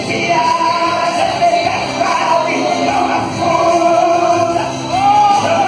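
Live gospel music: a melody of long held, gliding notes, most likely the singer's voice, over band accompaniment.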